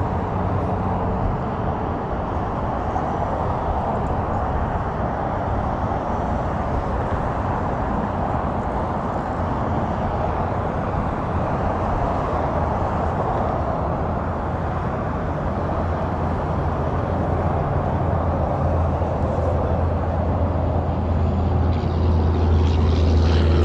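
Steady roar of highway traffic, with a deeper low rumble growing louder near the end.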